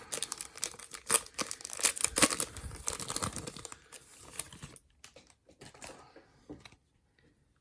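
A 2010 Topps Update baseball card pack's wrapper being torn open and crinkled: dense crackling for about four seconds, then a few fainter rustles that die away.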